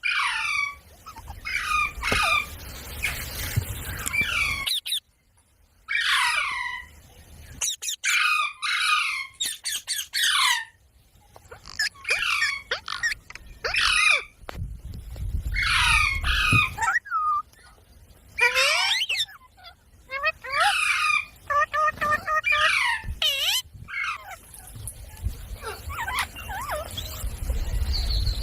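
Indian ringneck parakeet giving repeated sharp screech calls that fall in pitch, in quick series with short pauses, with a few steadier pitched notes about three quarters of the way through. A low rumble comes and goes underneath.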